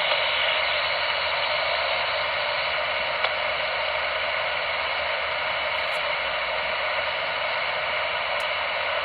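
Steady static hissing from a CRT Superstar SS9900 CB radio's speaker on receive, with no station coming through, and one faint tick about three seconds in. The distant station's skip signal has faded into the noise, which the operator puts down to the propagation disappearing.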